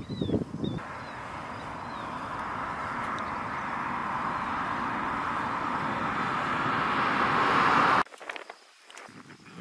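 Tyre and road noise of a vehicle approaching along the highway, growing steadily louder for about seven seconds, then cut off abruptly near the end.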